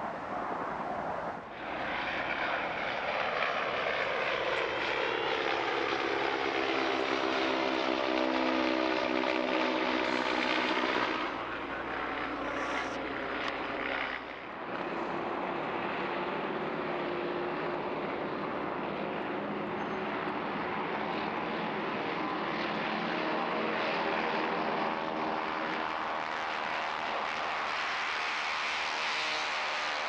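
Propeller airplane piston engines. First a plane flies past, its engine note falling steadily in pitch for several seconds. After a couple of abrupt breaks, engines run with an even drone.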